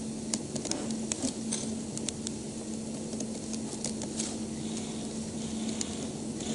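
Background of the lecture room: a steady low hum under a faint hiss, with scattered small clicks and crackles.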